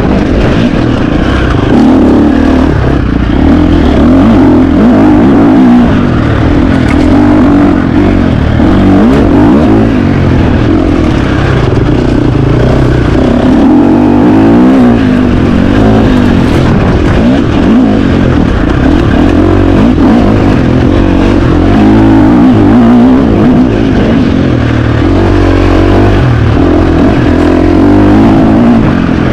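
2025 KTM 350 XC-F single-cylinder four-stroke dirt bike engine at race pace off-road, loud throughout, its pitch rising and falling constantly as the throttle is worked on and off.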